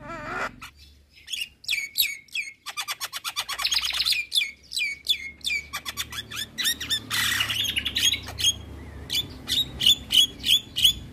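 Javan myna singing: rapid strings of sharp, downward-sliding whistled notes mixed with harsh, raspy chatter.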